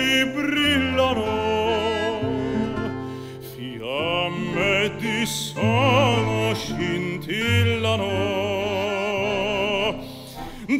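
A male vocalist sings a slow Italian love song in a full, operatic crooning style, holding long notes with a wide vibrato, accompanied by accordion and two nylon-string classical guitars.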